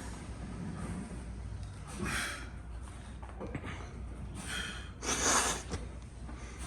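A person breathing out hard three times, in sharp hissing puffs, the last and loudest about five seconds in, as while straining through weight-lifting reps. A steady low hum runs underneath.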